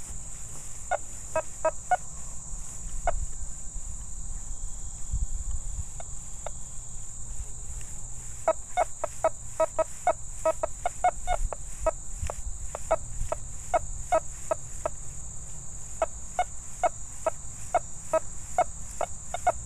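Nokta Fors Core metal detector giving short, broken chirps as the coil sweeps over a rusty iron nail: a few scattered blips, then a fast, irregular run of them from about eight seconds in. It never settles into a solid repeating tone, the sign of iron alone with no coin beneath.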